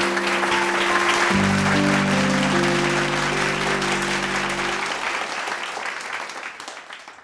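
Audience applauding, with music of slow held notes over it. The music stops about five seconds in, and the applause fades away near the end.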